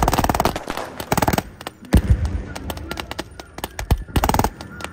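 Gunfire from a line of prone rifles and a bipod-mounted machine gun: short bursts of rapid automatic fire near the start, about a second in and about four seconds in, with single shots scattered between.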